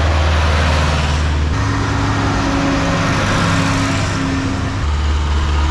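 Vintage farm tractor engines running steadily as the tractors drive past one after another. The engine note changes about a second and a half in and again near the end as a different tractor comes by.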